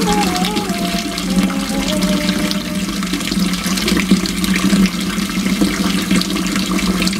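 Hot tap water running steadily from a faucet into a full cup standing in a sink, warming the cup.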